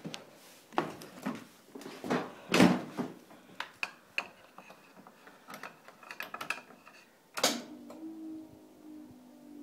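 Knocks, clicks and rattles of hands working the seat and controls of a John Deere 455 diesel lawn tractor. About seven and a half seconds in there is a loud click as the ignition comes on, then a steady low tone starts and holds.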